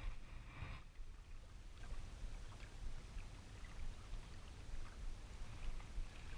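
Faint outdoor water-side sound: an uneven low wind rumble on the microphone with light water noise and small scattered ticks.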